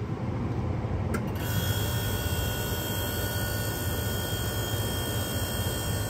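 A 1969 GM Frigidaire window air conditioner starting up: a steady low hum comes on, a click follows about a second in, and then a steady high whine runs over the hum.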